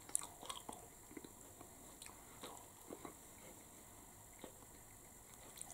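Faint chewing of a flaky-pastry chicken curry bake: scattered small mouth clicks and crackles.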